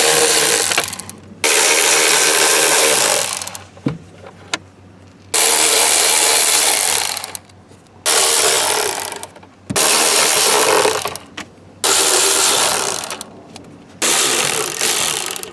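A power driver spins out T15 Torx screws one after another, in about seven runs of one to two seconds each with short pauses between.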